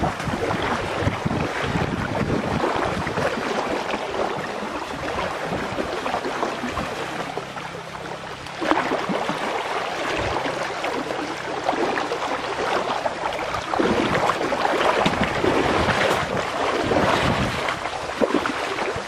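Water rushing and splashing in a shallow stream, mixed with wind noise on the microphone. It gets louder suddenly about nine seconds in.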